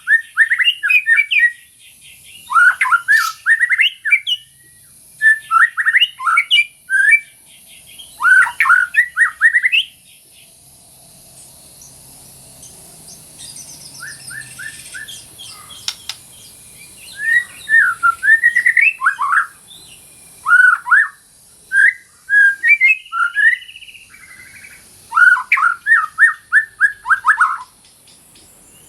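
White-rumped shama singing: short phrases of rapid, sweeping whistled notes, a lull of several seconds in the middle, then the phrases resume.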